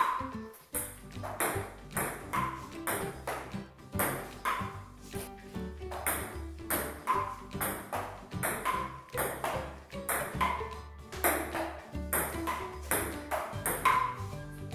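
Background music with a steady beat and a bright pinging note that repeats about once a second over a stepping bass line.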